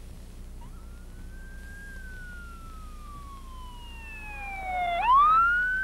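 Ambulance siren wailing: the tone rises, falls slowly over about three seconds, then sweeps sharply back up near the end, suddenly louder as it comes closer.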